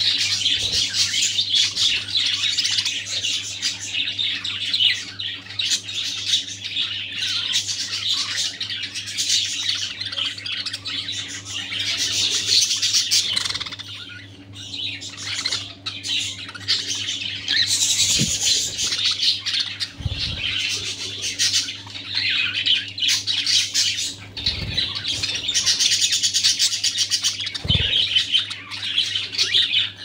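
Several budgerigars chattering and chirping together in a continuous warbling twitter, with a brief lull about halfway through. A low steady hum runs underneath.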